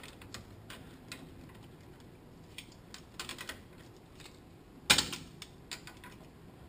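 Ratchet wrench clicking in short runs as the transmission's center support bolts are tightened, with one loud knock about five seconds in.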